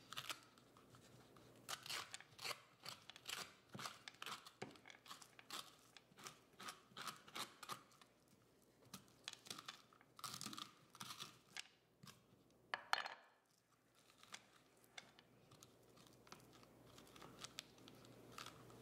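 Metal spoon scraping seeds and stringy pulp out of a halved spaghetti squash: faint, irregular short scrapes, one a little louder about 13 seconds in.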